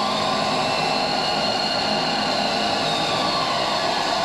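Live electronic noise performance: a dense, steady roar of noise with a faint high whine that slowly rises and falls, over a few faint steady low hums.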